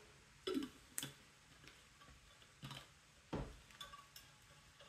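Faint, scattered light clicks and taps of small plastic Lego pieces being handled, about half a dozen at irregular intervals.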